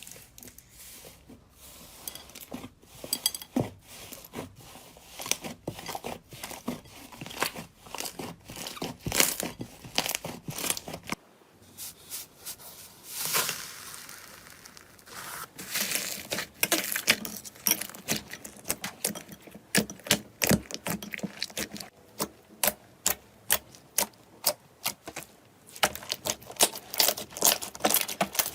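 Slime being squeezed and stretched by hand, making a rapid run of crackling, popping clicks. About eleven seconds in the sound changes to a new batch, with denser and sharper clicks.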